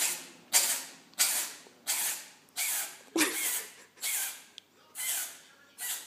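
An orange-and-white domestic cat sneezing non-stop: about nine sharp, hissy sneezes in quick succession, roughly one every two-thirds of a second. The cat is under the weather.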